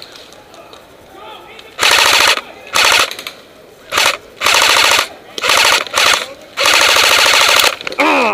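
Airsoft electric gun firing full-auto in six short bursts, the last one the longest at about a second, each a fast rattle of shots.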